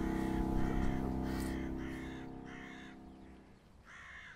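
Music ends, its low held chord fading away over about three seconds, while a bird gives short calls repeating about twice a second; two last calls stand alone near the end.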